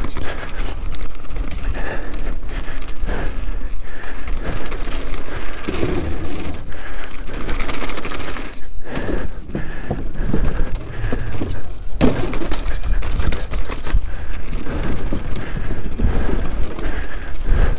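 Canyon Sender downhill mountain bike rattling down a rough dirt and rock trail at speed: a continuous clatter of chain, frame and suspension with tyres crunching over loose ground, over a steady low rumble.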